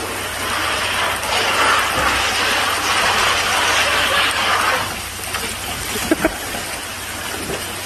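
Water rushing through a tube water slide and pouring into a pool, swelling louder for a few seconds, then a splash with a few sharp knocks as something shoots out of the slide into the water about six seconds in.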